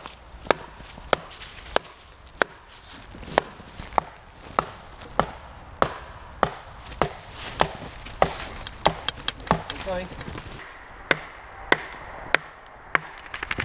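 Wooden mallet striking wooden wedges driven along a log, splitting it into planks by hand. Sharp knocks come in a steady rhythm, about one every half second or so.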